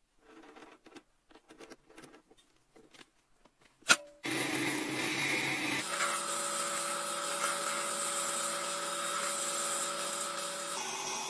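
Faint scratching and handling sounds, then a sharp click about four seconds in. After that a metal lathe runs steadily with a hum holding several steady tones while its cutting tool turns down a metal rod.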